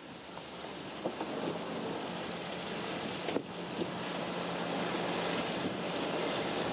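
Wind buffeting the microphone and sea washing around the hull, growing slowly louder, over the steady low hum of a boat's engine. A couple of faint knocks, about a second in and again a little past three seconds.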